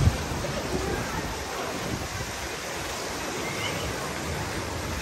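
Steady rush of water running down water slides and splashing out of their ends into the pool. A brief low thump right at the start, and faint distant voices.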